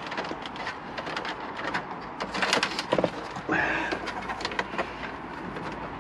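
Hands pushing a thin dashcam power cable in behind the plastic A-pillar trim and rubber door seal of a car, making irregular scratchy rustles and small plastic clicks. A short pitched sound comes about halfway through.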